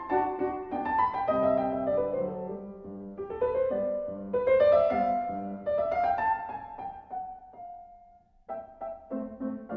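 Solo piano music playing a flowing line of notes. A held note fades out about seven seconds in, followed by a brief pause before the playing resumes.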